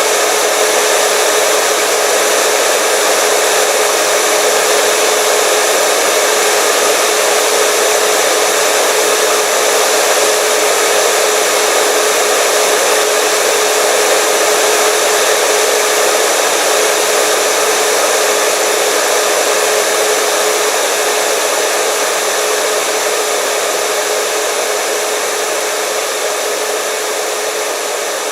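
Hair dryer running steadily: a constant rushing blow of air with a steady motor hum and a faint high whine. It eases slightly quieter in the last few seconds.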